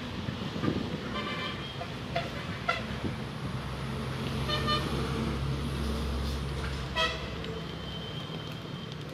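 Road traffic: a vehicle's engine rumble swelling and fading in the middle, with several short horn toots.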